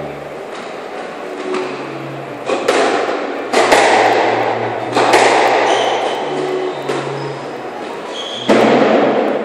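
Squash ball being struck and smacking off the court walls during a rally: a few sudden loud thuds, each echoing for about a second in the enclosed court.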